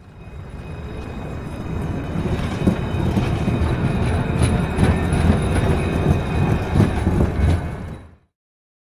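Model train running along the track: a steady rumble with wheel clatter, scattered clicks and a faint high whine. It builds up over the first two seconds and cuts off suddenly about eight seconds in.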